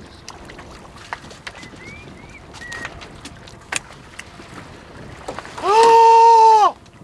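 A man's loud yell, one held note of about a second near the end, rising as it starts and dropping off as it ends. Before it, only faint scattered clicks and knocks.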